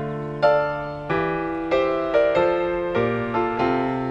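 Background piano music: single struck notes and chords at a gentle, even pace, each ringing and fading before the next.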